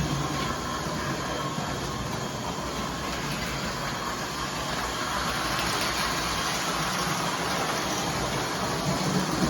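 O gauge model train running on the layout's track: a steady rumble of wheels on rail with motor hum.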